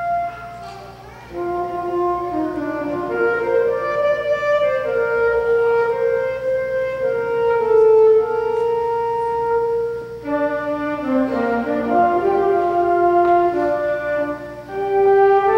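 Flute and saxophone duet playing a slow melody in long held notes, with brief breaks between phrases. Around the middle the flute drops out and the saxophone carries the line alone.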